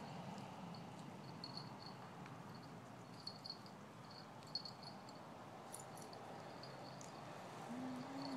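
Crickets chirping faintly and steadily in short repeated pulses, with a few soft clicks from the two dogs' play. Near the end a dog lets out a short, low, slightly rising whine-growl.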